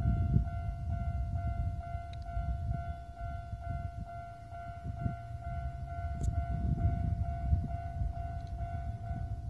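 Japanese railway level crossing alarm ringing its steady electronic two-tone bell, about two strokes a second, with a loud, uneven low rumble underneath.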